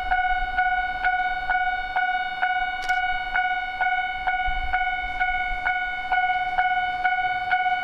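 Japanese railway level-crossing alarm ringing: an electronic bell tone struck evenly about twice a second. A single sharp click about three seconds in.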